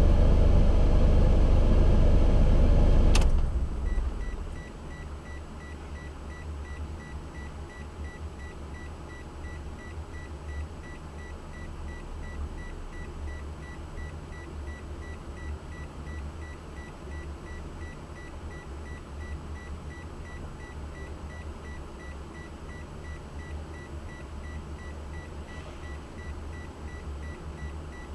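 Car engine running, then shut off with a click about three seconds in, followed by a car's warning buzzer beeping steadily at about two beeps a second.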